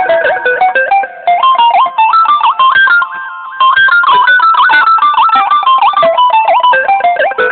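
A ringtone tune: a quick melody of short, plucked guitar-like notes running up and down in steps, briefly softer about three seconds in.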